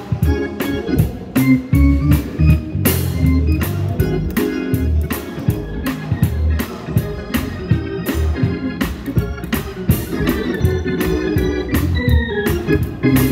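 Organ music during a church service, sustained chords over frequent sharp percussive hits.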